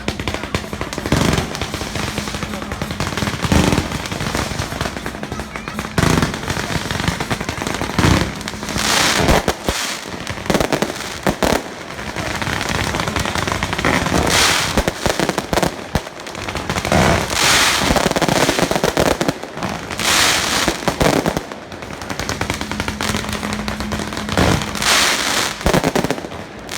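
Strings of firecrackers going off in a rapid, continuous crackle, with louder bangs every few seconds.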